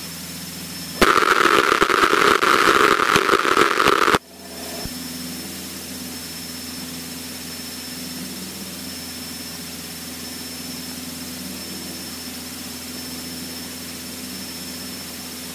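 Cessna 152's four-cylinder Lycoming engine running steadily at low power, heard from inside the cockpit with a thin high whine over it. About a second in, a much louder burst of rough hiss lasts about three seconds and cuts off suddenly.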